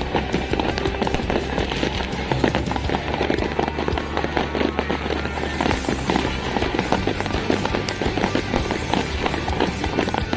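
New Year fireworks and firecrackers going off in a dense, unbroken crackle of many small bangs, with music playing under them.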